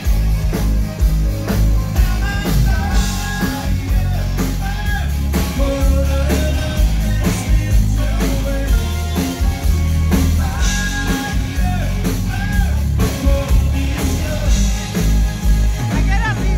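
A rock band playing live: drum kit, bass guitar, electric guitar and keyboards, heavy in the bass, with a lead singer's voice over them.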